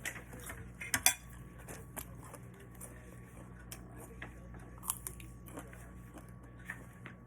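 Eating at a table: utensils and dishes clicking and clinking in scattered short knocks, loudest as two sharp clicks about a second in.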